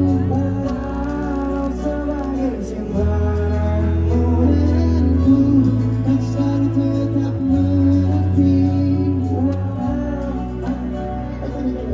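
Pop band music with a sung melody over deep held bass notes that change every two to three seconds.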